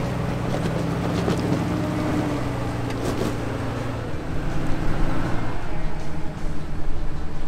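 Engine of a lifted Chevrolet Corvair-bodied off-road wrecker running as it climbs a rocky slope, a steady note for about four seconds, then rougher and less even as it pulls on up the hill.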